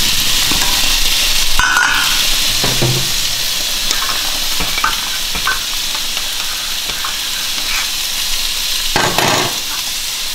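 A stainless steel pot of rice boiling on a gas hob, a steady hiss, while a spoon stirs it with light clinks against the pot. The metal lid is handled about nine seconds in.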